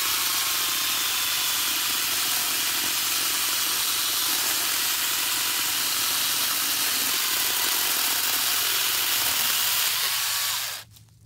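Battery angle grinder converted to a chainsaw, its bar and chain running steadily while cutting through a small tree stump. It stops suddenly near the end.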